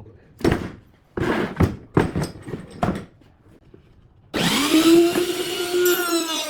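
A few short strokes of tool work on wood, then about two-thirds of the way in an electric power tool's motor starts, whining up in pitch and running steadily.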